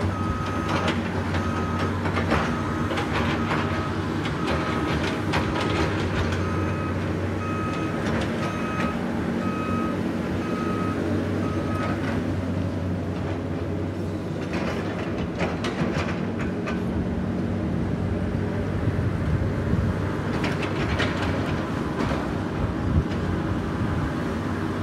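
Diesel engines of a compact track loader and a tracked excavator running, with the tracks clattering and metal clanking now and then. For the first half a backup alarm beeps steadily, about a beep every three-quarters of a second, and stops about halfway through.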